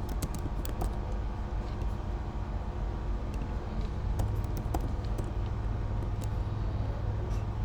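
Scattered computer keyboard key clicks over a steady low background rumble, with a stronger low hum joining about four seconds in.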